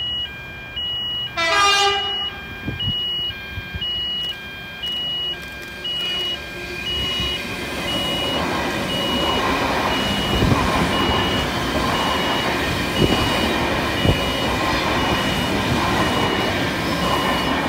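A C-set double-deck electric train sounds a short horn blast about a second and a half in, then passes close by with a rising rumble of wheels on rails and several thumps. Throughout, a level crossing's electronic warning bell rings, about one or two chimes a second.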